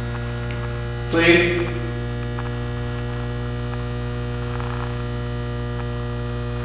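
Steady electrical mains hum: a constant low drone with a ladder of fainter, higher steady tones above it.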